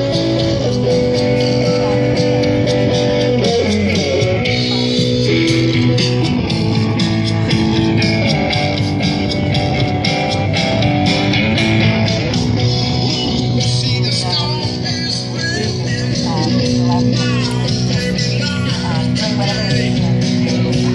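Live guitar music from a solo musician, played over outdoor PA speakers, with a voice singing in the second half.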